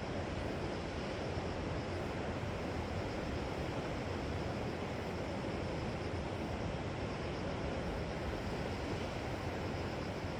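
Steady wash of sea surf on a shore, an even hiss without separate breaking waves standing out.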